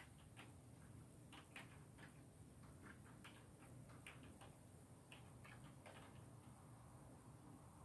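Faint computer keyboard keystrokes, irregular clicks that stop about six seconds in.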